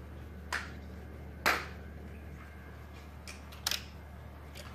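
A few sharp clicks and knocks of die-cast toy cars and plastic Hot Wheels transporter parts being handled: one about half a second in, the loudest about a second and a half in, and another near the end.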